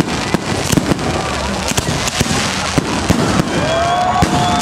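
Fireworks going off in dense succession, with many sharp bangs and crackles from aerial shells and rockets. A whistling tone sounds near the end.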